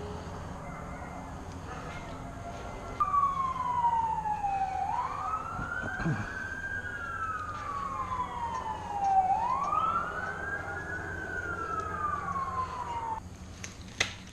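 A siren wailing: its pitch falls slowly, then sweeps quickly back up, twice over, starting and cutting off abruptly. A steady low hum runs underneath.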